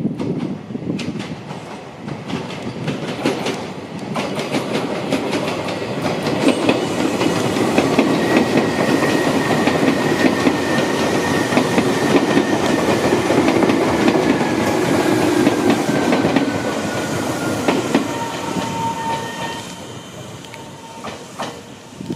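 Izukyu 8000 series electric commuter train approaching and running past, with wheel clatter over rail joints and a thin whine that slowly falls in pitch as the train slows to stop at the platform. The sound builds up, then dies down near the end.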